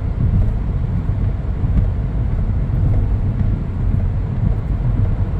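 Steady low rumble of a moving vehicle, even in level with no distinct events.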